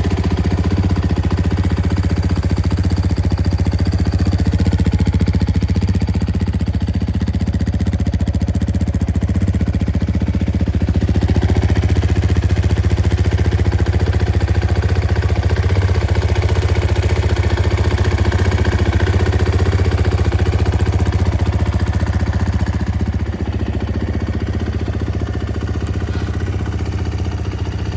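KTM 450 XCF-W's single-cylinder four-stroke engine idling steadily, dipping slightly in level near the end.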